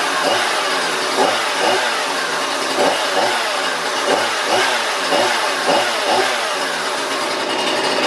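Husqvarna 235 chainsaw's small two-stroke engine running with its pitch dipping and rising over and over, about twice a second, steadying somewhat near the end.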